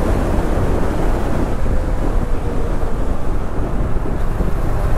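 Wind buffeting the microphone of a moving motorcycle, over steady engine and road noise.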